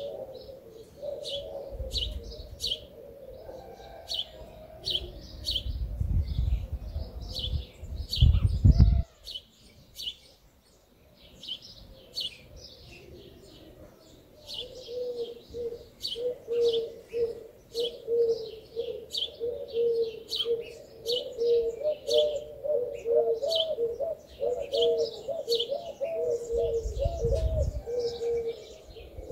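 Small birds chirping in quick short notes, two or three a second, over pigeons cooing in a low warbling drone that grows steadier in the second half. A low rumble rises between about five and nine seconds in and comes again near the end.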